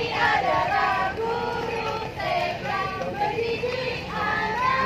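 High-pitched voices singing a song, with held notes that bend from one pitch to the next.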